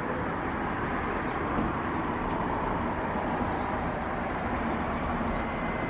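Steady outdoor rumble and hiss of distant traffic and city noise, with no single sound standing out.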